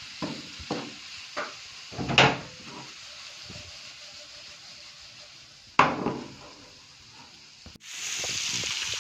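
Wooden spatula knocking and scraping in a nonstick frying pan as sliced vegetables are stir-fried, with two louder knocks, one about two seconds in and one about six seconds in. A steady sizzle of frying vegetables sets in near the end.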